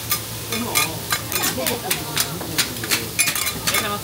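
Metal spatulas clicking and scraping on a flat iron griddle in quick, irregular taps, over the steady sizzle of noodle pancakes frying.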